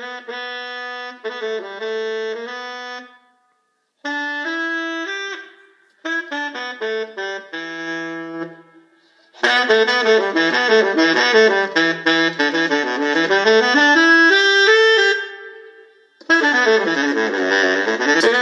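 Music played through an HMDX Jam XT portable Bluetooth speaker: a melody in short phrases with brief pauses, then a fuller, louder passage from about halfway, breaking off for a moment near the end before carrying on.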